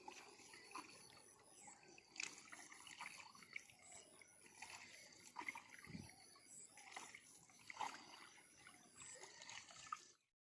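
Faint water trickling and sloshing, with scattered small splashes and ticks; the sound cuts off abruptly near the end.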